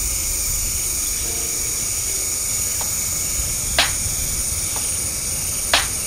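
Tropical forest ambience: a steady high-pitched insect drone over a low rumble, with two short, sharp sounds about two seconds apart, the second near the end.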